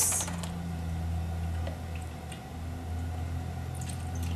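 A steady low hum, then near the end orange juice starts pouring from a bottle into a glass packed with ice, splashing over the cubes.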